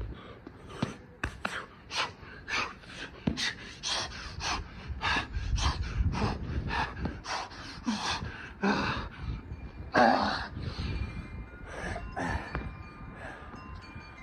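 A man panting hard and gasping from the exertion of burpees, about two to three breaths a second, with one louder gasp about ten seconds in. Faint wind chimes ring near the end.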